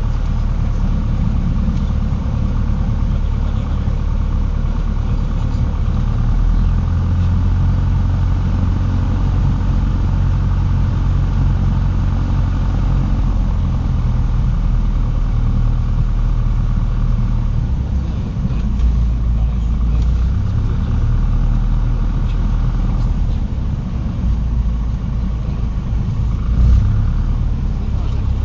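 Cessna 150's four-cylinder Continental O-200 engine and propeller running steadily as a continuous low drone, shifting slightly in tone about 18 seconds in and again near the end.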